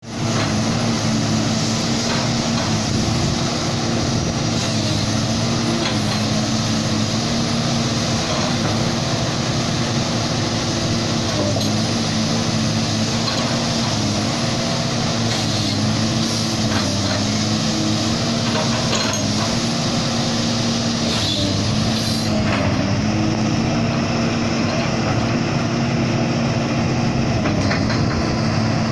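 Cummins diesel engine of a 21-tonne Haitui HE210 crawler excavator running steadily while the boom, arm and bucket are worked. Its pitch dips slightly and recovers every second or two as the hydraulics take load.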